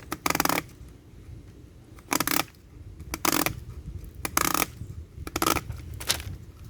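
Used oil filter being cut open: six short scraping cuts roughly a second apart, the last one weaker.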